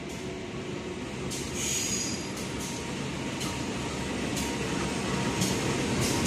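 CC 201 diesel-electric locomotive running light on a shunting move, approaching and passing, its diesel engine rumbling and growing louder. The wheels give sharp clacks roughly once a second over rail joints, with a brief high wheel squeal about two seconds in.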